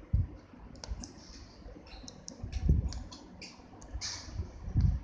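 Light plastic toy dishes and plates clicking and clattering as they are handled, with a couple of dull knocks, the loudest about two and a half seconds in and near the end.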